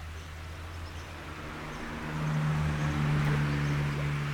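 A speared carp thrashes at the water's surface on a spear line, splashing from about two seconds in. Under it runs a steady low mechanical hum.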